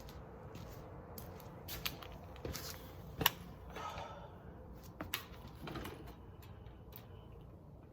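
Scattered light metallic clicks and taps of hand tools and parts on an engine being assembled, the sharpest about three seconds in.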